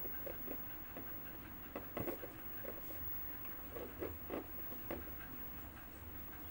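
Light, irregular clicks and rustling of hands working a crochet hook and pushing cotton stuffing into a crocheted tube.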